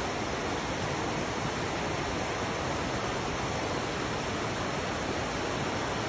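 Waterfall rushing steadily: an even, unbroken wash of falling water.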